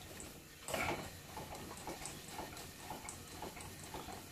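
A 5-inch gauge narrow-gauge Bagnall-style live steam locomotive running on compressed air with its wheels off the track, probably in reverse. It has a light, regular exhaust beat, with a louder puff of air just under a second in. The engine is running evenly after its valves were reset.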